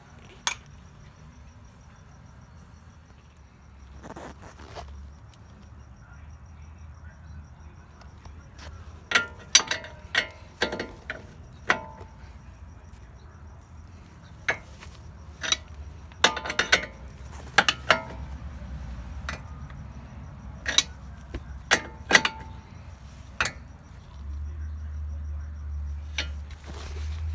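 Irregular sharp metal clanks and knocks, some ringing briefly, from hand tools and parts being handled during car front suspension work, coming thickest in the middle of the stretch over a steady low hum.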